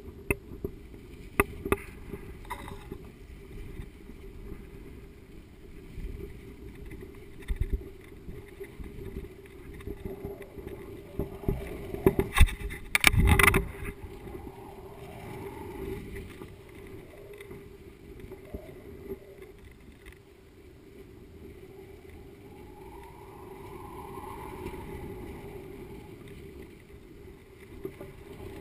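Wind rumbling over the microphone of a GoPro hanging beneath a kite, with scattered knocks and rattles as the swaying camera rig jolts on the line. A burst of louder knocks comes about 12 to 13 seconds in.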